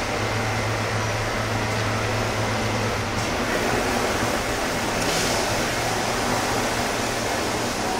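Steady low mechanical hum with an even hiss over it, unbroken throughout: background noise of running machinery or air handling.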